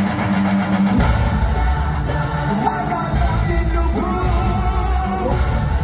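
Live rock band starting a song: a low sustained intro with steady ticking, then about a second in the full band comes in loudly, with a sung melody over it.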